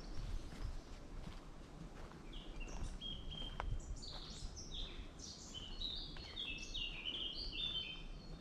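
A songbird singing: a quick run of short, high, varied notes that starts about two and a half seconds in and gets busier, over a steady low background noise.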